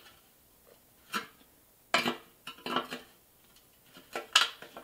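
Needle-nose pliers gripping and twisting the rusty pressed-steel roof tabs inside a vintage Tonka truck cab: a few sharp metallic clicks and scrapes with short pauses between, the loudest near the end.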